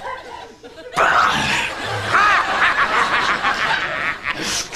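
Sitcom studio audience laughing, a crowd of overlapping laughs that swells up about a second in after a brief lull.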